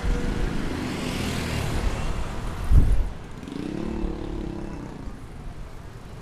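Small motorcycles and scooters passing close by on a street, their engines running over steady traffic noise. A brief low thump about three seconds in is the loudest moment.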